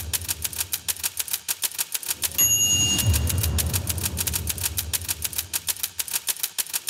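Rapid typewriter key clatter, about nine strokes a second, over a low bass beat, with a bell ding about two and a half seconds in.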